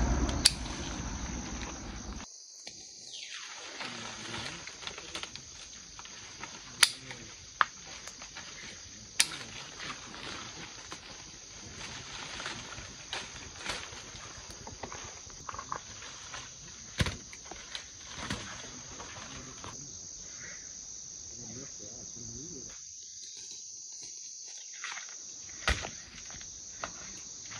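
Insects chirring in a steady, high, even drone, with leaves rustling and scattered sharp snaps and clicks as citrus fruit is pulled from the branches by hand.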